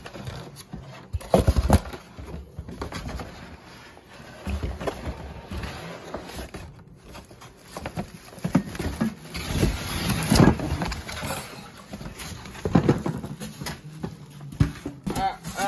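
Plastic wrapping crinkling and cardboard scraping as a boxed appliance is worked out of its packaging by hand, with a few knocks and bumps against the box.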